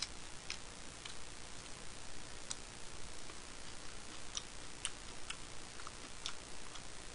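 Quiet eating sounds: small, sharp clicks at irregular intervals, roughly one or two a second, over a steady hiss.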